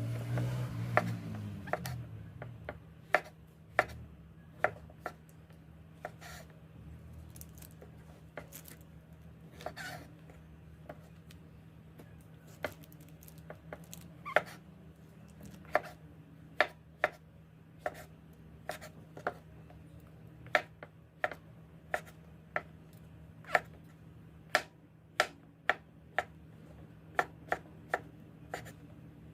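A knife chopping on a cutting board: sharp, irregular knocks about one or two a second, over a faint steady hum.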